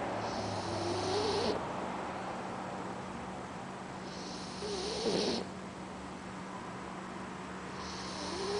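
Boxer puppy snoring in its sleep: three snores about three and a half seconds apart, each a wavering, nasal sound with a hiss. The third starts near the end.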